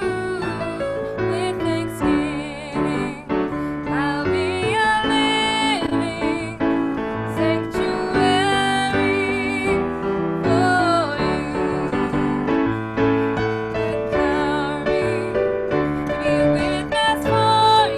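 Piano music with a voice singing over it on long, wavering notes.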